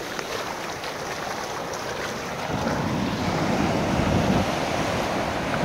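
Ocean surf breaking and washing up the sand, with wind on the microphone; the sound swells louder about halfway through.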